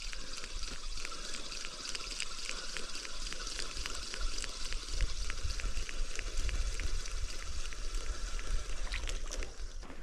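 Spinning reel being cranked on a fast retrieve, its mechanism ticking quickly and evenly, over a steady background hiss.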